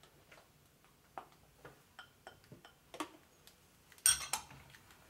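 Light clicks and knocks of a plastic spatula and small measuring cup against a plastic food processor bowl as mayonnaise is scraped in, with one louder scrape-and-clatter about four seconds in.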